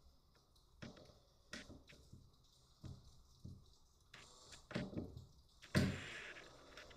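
Light knocks and clicks of flat-pack cabinet parts and fittings being handled and set down, with a sharper knock near the end.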